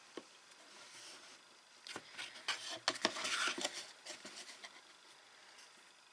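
Cardboard and paper craft pieces being handled and pressed together: after a quiet start, a short spell of light taps, clicks and crinkly rustling, loudest about three seconds in, then fading.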